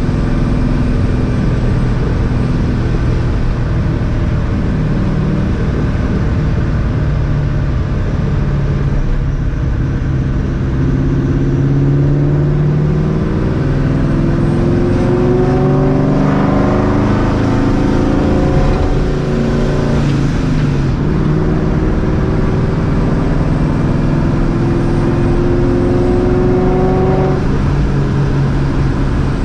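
Straight-piped, Vortech-supercharged 2004 Mustang GT V8 running under way. Its pitch climbs under acceleration through the middle, drops at a gear change about twenty seconds in, climbs again, and drops once more near the end.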